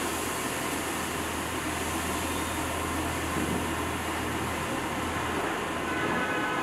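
Steady street traffic noise: a low engine hum over a broad hiss, the hum dropping away about five and a half seconds in.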